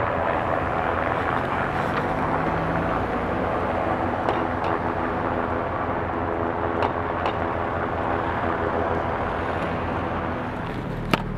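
Steady hum of vehicle engines and traffic at a street intersection, with a few faint clicks and one sharp click near the end.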